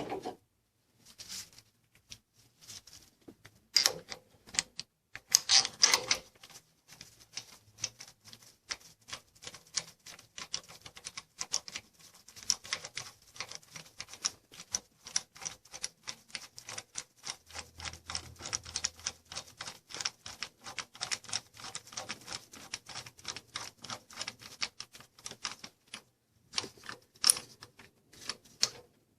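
Hand ratchet wrench clicking in quick, even strokes, about four clicks a second, on the engine's front end during a timing chain job. A few louder metallic clanks from tools come early on and near the end.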